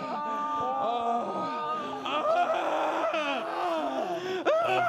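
Several voices moaning and wailing together without words, their pitches sliding up and down over one another.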